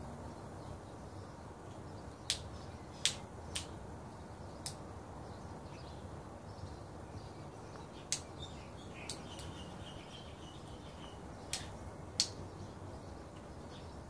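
A song thrush beating a snail shell against a concrete ledge: about eight sharp knocks at irregular intervals, in two loose clusters, as it tries to break the shell open.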